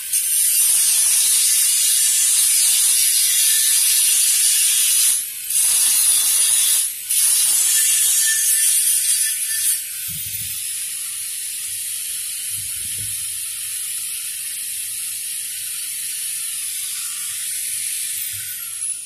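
Angle grinder grinding steel at the end of a pipe. It grinds hard for about ten seconds with two brief let-ups, then runs under lighter contact with a higher whine, and winds down with a falling whine at the end.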